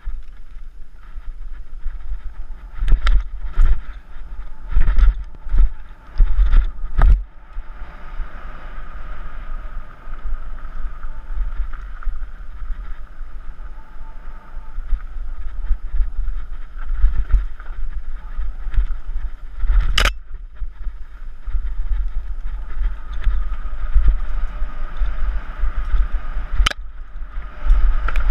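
Wind buffeting a helmet camera's microphone as a mountain bike rolls fast down a dusty gravel trail, with a steady rumble of tyres and rattling. A run of heavy knocks comes about three to seven seconds in as the bike hits rough ground, and two sharp clicks come later.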